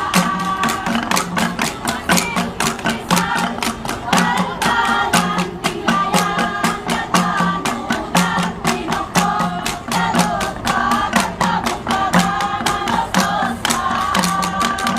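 Kalinga flat gongs (gangsa) beaten in a fast, steady interlocking rhythm of about four strikes a second, while a group of voices sings a salidummay chant over them.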